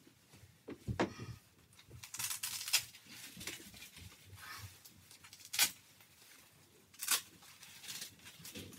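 Clothing being handled as a black costume jacket and its collar piece are put on and adjusted: soft rustling and rubbing of fabric, with a few short sharp clicks or snaps.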